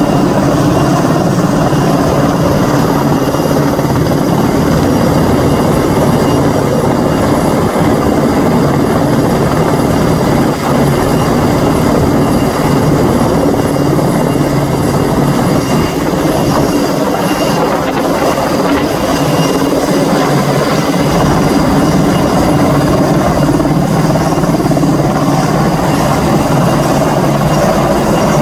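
Helicopter running steadily and loudly, its engine and rotor noise unbroken throughout.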